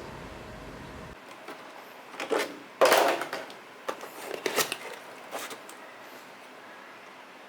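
An ASUS ROG motherboard's cardboard box being opened and its contents handled: a few short rustles and light knocks.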